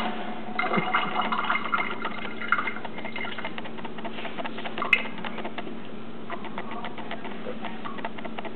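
Kitchen tap letting a thin trickle of water into a stainless steel sink, the drops pattering and ticking irregularly, over a steady low hum.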